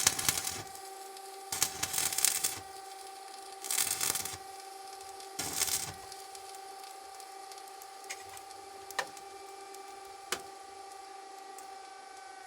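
A power tool's electric motor runs at a steady pitch, with four loud rasping bursts of grinding or cutting about two seconds apart, then a few light clicks. Near the end it is switched off and its pitch falls as it spins down.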